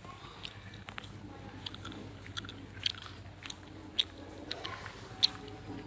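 Scattered light crackles and clicks at an uneven pace, a few sharper ticks among them, over a faint low hum.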